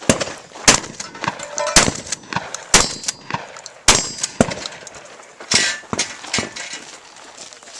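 A string of about six shotgun shots at irregular intervals of roughly a second, with steel targets clanging and ringing as they are hit.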